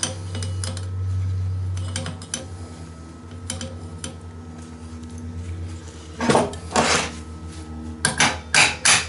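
Stainless steel parts clanking and knocking as a stuck piece is worked loose: a few light clinks near the start, then a string of loud, sharp metal knocks in the last three seconds. A steady low hum runs underneath.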